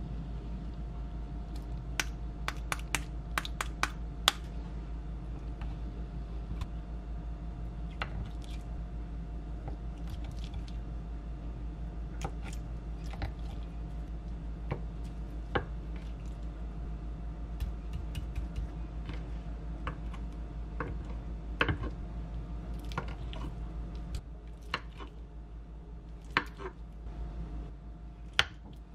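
Kitchen knife slicing a block of acorn jelly (dotorimuk) on a wooden cutting board: irregular sharp taps of the blade meeting the board, a quick run of them a few seconds in and scattered ones after, over a steady low hum.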